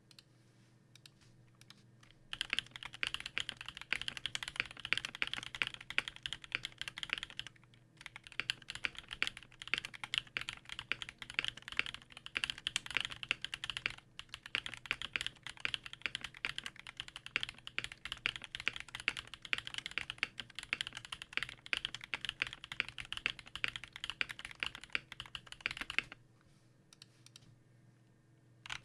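Fast, continuous typing on a custom KBD8X mk II mechanical keyboard with a black polycarbonate case and brass plate, lubed Everglide Dark Jade switches and GMK keycaps. It starts about two seconds in, pauses briefly twice, and stops a few seconds before the end.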